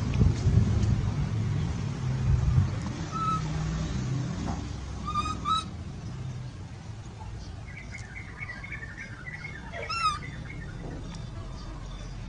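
A low rumble over the first few seconds, then scattered short high chirps and squeaks from an animal, with a run of quick twittering about eight seconds in and a sharp, steeply falling squeal near ten seconds.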